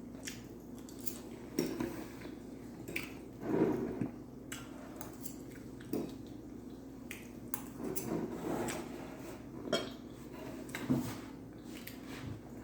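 Utensil clinking and scraping against a dish of beefaroni, in scattered sharp clicks, with close-up eating sounds in between.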